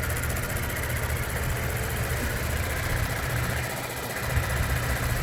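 Vehicle engine idling with a steady low hum that dips briefly about four seconds in.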